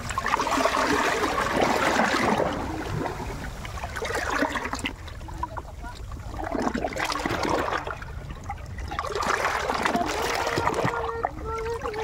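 Shallow water rushing and gurgling over rocks, swelling and easing every few seconds.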